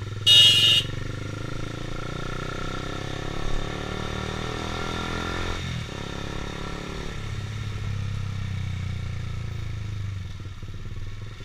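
A Honda CBR150R's single-cylinder engine running under way, rising in pitch as it accelerates, dropping at a gear change about halfway through, then running steadily. A short, loud horn beep sounds near the start.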